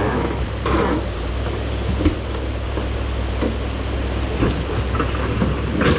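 Excavator's diesel engine running with a steady low rumble, with one sharp knock about two seconds in.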